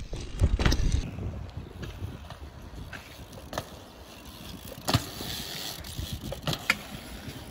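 Mountain bike rolling over an asphalt pump track: steady tyre noise with a few sharp knocks as it pumps over the rollers. Wind buffets the microphone for about the first second.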